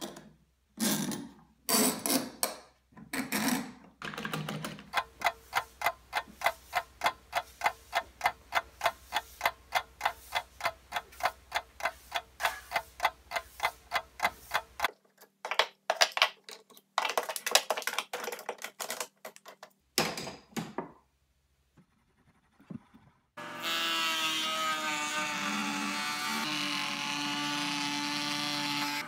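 Shop work in three parts: a few knocks as a glue-up clamp is set, then a long run of quick, even broom strokes, about three a second, sweeping a concrete floor. About 23 seconds in, a table-mounted router starts running steadily and trims the plywood mallet head with a bearing-guided flush-trim bit.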